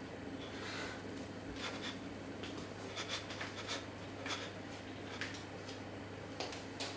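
Quiet scuffs and rustles of people moving about, irregular and scattered, over a steady low hum.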